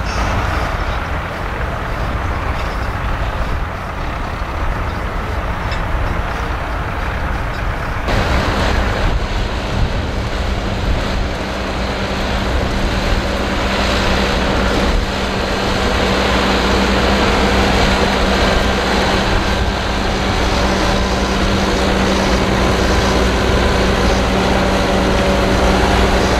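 Fendt 724 tractor's six-cylinder diesel engine running steadily under load, pulling a six-furrow plough in work. About a third of the way in the sound becomes closer and louder, with a steady engine hum.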